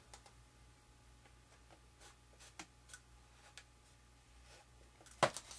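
Faint, scattered small clicks and light scraping from a hand tool working on a foam model airplane's fuselage, with one sharp, louder click about five seconds in.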